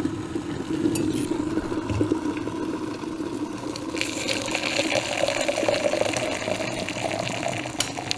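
Water running from a kitchen tap into a container, the pitch of the filling vessel rising as it fills. About four seconds in the flow turns hissier and brighter, and there are a few small clinks.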